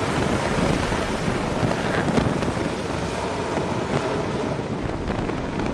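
F/A-18 fighter jet's engines at full thrust for a catapult launch off a carrier deck: a steady rushing noise.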